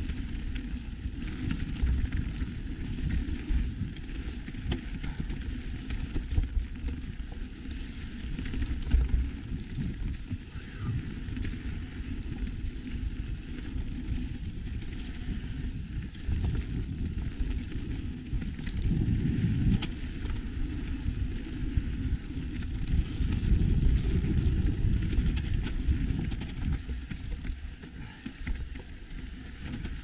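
Mountain bike riding down a dirt forest trail: tyres rolling and the bike rattling over the ground, with a rushing noise of moving air that rises and falls with the ride and is loudest about two-thirds of the way through.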